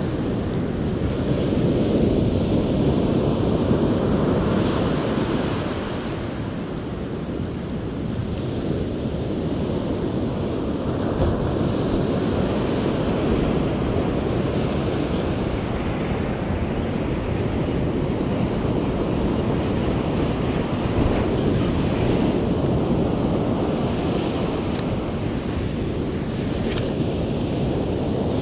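Surf breaking and washing up a sandy beach, a continuous wash of waves that swells and eases, with wind buffeting the microphone.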